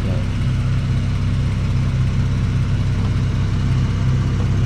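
Car engine running steadily, heard from inside the cabin as a low, even drone.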